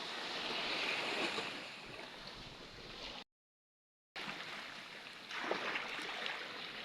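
Ocean surf washing against the rocky shore, a steady rushing noise, with a gap of dead silence lasting about a second a little past halfway.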